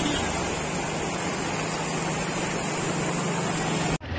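Floodwater rushing steadily in a broad sheet across a road, with a faint low hum beneath it; it cuts off abruptly near the end.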